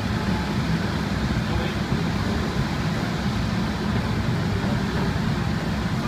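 Gas-fired borosilicate glass furnace burner running with a steady low rumble.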